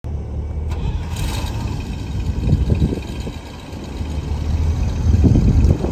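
1969 GMC 6500 grain truck's engine running, its sound swelling louder twice, about two and a half seconds in and again near the end.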